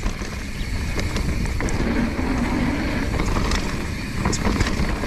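Mountain bike rolling down a rocky trail: the tyres knock and clatter over stones, with rattling from the bike and wind buffeting the camera's microphone.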